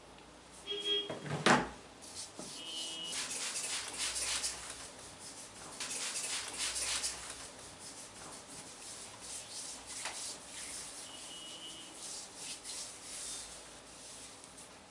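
Scratchy rubbing strokes of a massage on skin, swelling and fading in waves, with a single sharp knock about one and a half seconds in.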